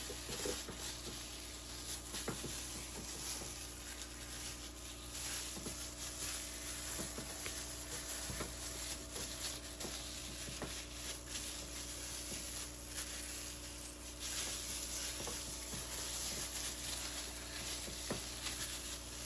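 Plastic-gloved hand rubbing a soy sauce and lemon baste over the skin of a raw pork leg: soft wet rubbing and handling noises with scattered small clicks, over a faint steady hum.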